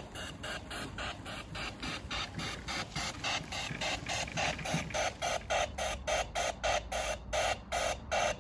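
Miniature ride-on steam waggon chuffing in a steady beat of about four chuffs a second, growing louder as it approaches, then cutting off near the end as it stops.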